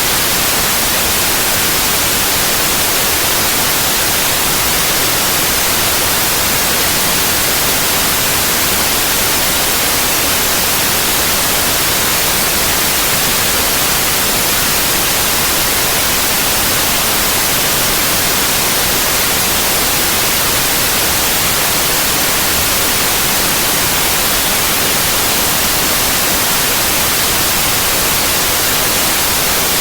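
Steady, continuous white noise: an even hiss, bright in the highs, with no change or interruption.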